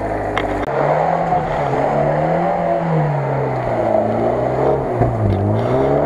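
Lada Niva engine revving, rising and falling in long sweeps as the car works through deep mud.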